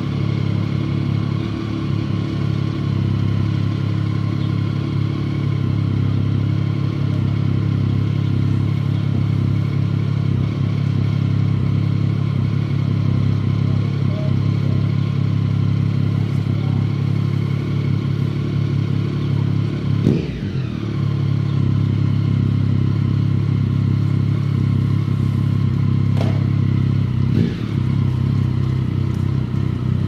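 A steady, low engine drone, with a brief falling whine about two-thirds of the way through and a knock or two near the end.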